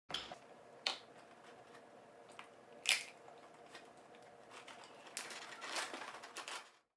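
Snow crab leg shells snapping as they are broken by hand, four sharp cracks, the loudest about three seconds in, followed by a couple of seconds of rustling and handling noise.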